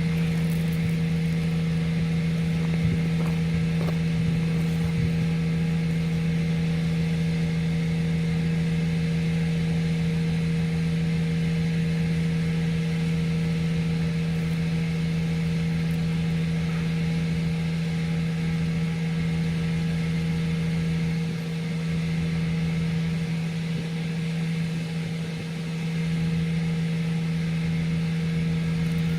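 Septic vacuum truck's engine and vacuum pump running steadily while sucking out the septic tank: a constant low hum, dipping slightly in level about three quarters of the way through.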